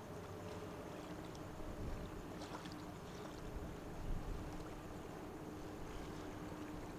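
Steady low rumble with a faint, even hum: the ambient sound of a large cruise ship under way in harbour, with a few faint high ticks over it.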